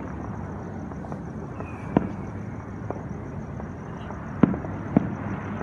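Distant aerial fireworks bursting: a few sharp, isolated bangs, the clearest about two seconds in and twice more near four and a half and five seconds, over a steady low rumble.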